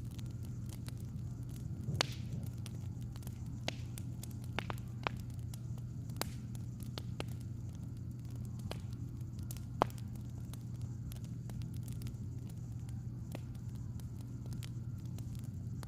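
Crackling wood fire: irregular sharp pops and snaps, the loudest about two seconds in and near ten seconds in, over a steady low hum.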